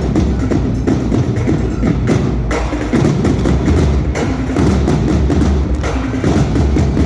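Loud percussion-driven music: rapid drum strikes with sharp, woodblock-like clicks over a heavy bass.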